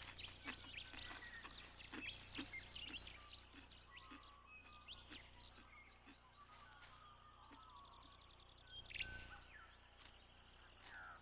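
Faint wild ambience of many small birds chirping and calling, busiest in the first few seconds, with a louder burst of sound about nine seconds in.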